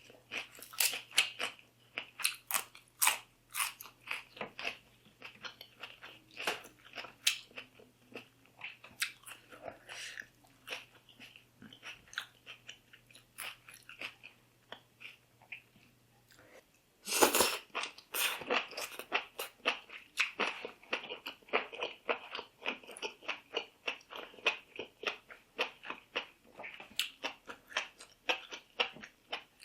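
Close-miked eating: a person biting and chewing, with a rapid run of crisp crunching and wet clicking mouth sounds. It thins out for a few seconds in the middle, then a louder crunching burst comes a little past halfway and the chewing picks up again.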